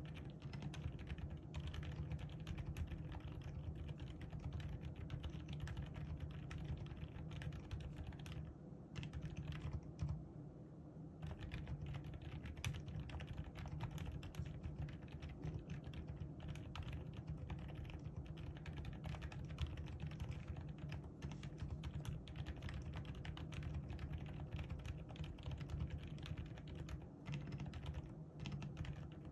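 Leobog Hi75 mechanical keyboard with low-noise (silent) Moon White switches being typed on continuously, a steady stream of keystrokes with a brief lull about nine seconds in.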